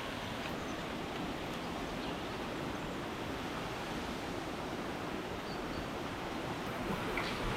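Steady, even rushing noise of outdoor forest ambience, with a few faint ticks near the end.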